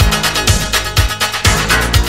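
Electronic dance music from a DJ's mixed 1980s set, with a steady kick drum about twice a second under a sustained bassline and hi-hats.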